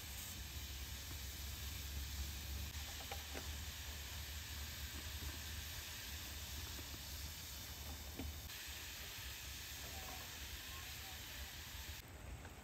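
Hot oil sizzling steadily in a pan on a gas stove, with a few small crackles. It turns quieter just before the end.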